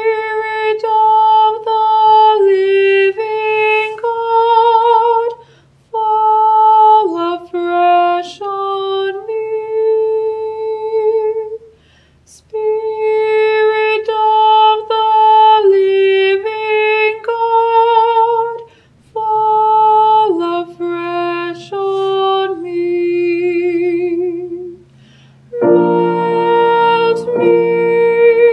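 Closing music after the benediction: a slow solo melody with vibrato on the held notes, in four phrases with short pauses between them, over a soft low sustained accompaniment. Fuller, lower chords join in near the end.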